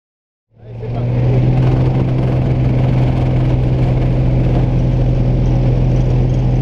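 Small propeller plane's engine running steadily, a deep, even drone heard from inside the cabin. It comes in quickly about half a second in, after silence.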